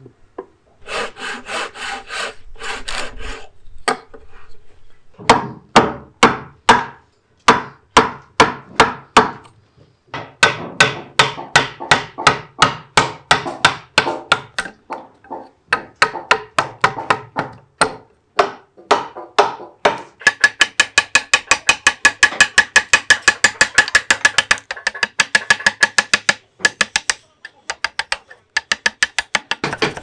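Broad steel chisel chopping and paring a notch into a wooden beam: sharp strikes about two or three a second, with some scraping near the start, quickening into a fast run of ringing strikes about two-thirds of the way through.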